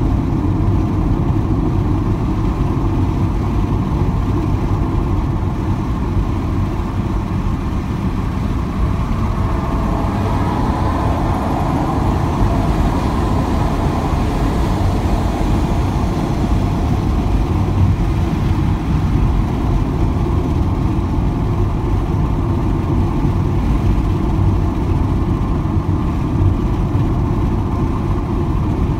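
Steady road and engine noise inside a car's cabin while driving at highway speed, mostly a low rumble with no sudden events.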